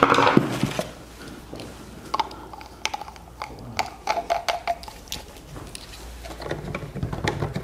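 Plastic irrigation fittings being handled while a solenoid valve is fitted to a poly manifold: a louder rustle and knock at the start, then scattered light clicks and taps of plastic parts.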